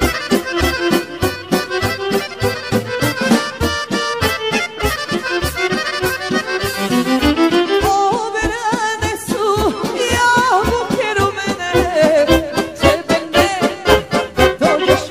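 Serbian folk music with an accordion playing the melody over a quick, steady beat. About eight seconds in, a second, wavering melody line joins above it.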